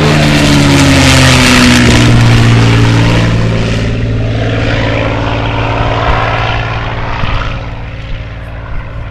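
P-51 Mustang flying past low with its propeller engine running: the engine note drops in pitch as it passes in the first couple of seconds, then its drone fades away.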